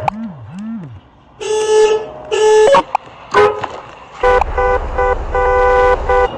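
Vehicle horn honking in repeated blasts: two half-second honks, a short toot, then a quick run of beeps near the end.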